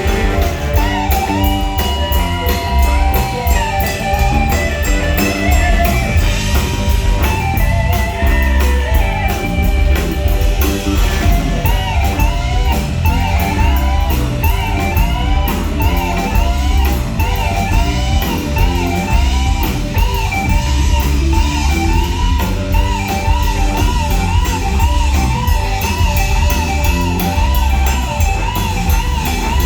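Live rock band playing an instrumental passage: electric lead guitar plays fast, repeating melodic runs over bass and a drum kit with steady cymbals.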